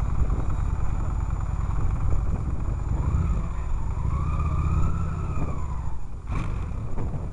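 Motorcycle engine running at low speed, picked up by a camera mounted on the bike, with a heavy low rumble throughout. The engine note rises and falls once in the middle, and a short knock comes a little after six seconds in.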